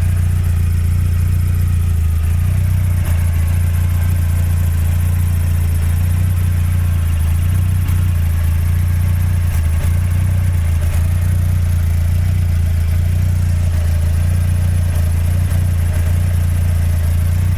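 Mazda Miata's four-cylinder engine idling steadily, with a faint, high cricket-like chirping over it: the clutch slave cylinder's under-greased pushrod vibrating with the engine and rubbing against the throw-out fork lever.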